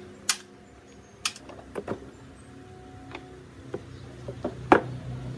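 Tools and parts being handled during hands-on repair work: a string of sharp, separate clicks and knocks, about eight in five seconds, with the loudest one near the end.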